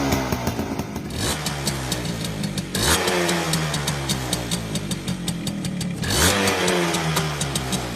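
Suzuki AX100's two-stroke single-cylinder engine being revved: two sharp throttle blips, about three seconds in and again about six seconds in, each followed by the revs falling back down.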